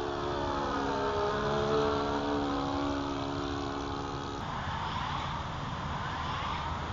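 Saito FA-62 four-stroke glow engine of an RC model plane running in flight, its pitch dropping as it passes over. About four seconds in the engine note drops out, leaving a steady hiss.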